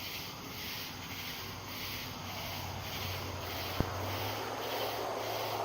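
A car approaching on a road, its low hum and tyre noise growing louder toward the end, under a strange high-pitched pulsing call from the trees that repeats two or three times a second; one sharp click a little past the middle.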